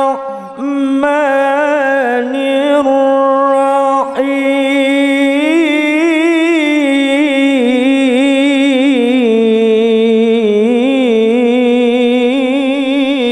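A man recites the Qur'an in the melodic tilawah (qiro'ah) style into a microphone. He holds long notes ornamented with wavering runs, with brief breaks near the start and about four seconds in, and the phrase tails off at the very end.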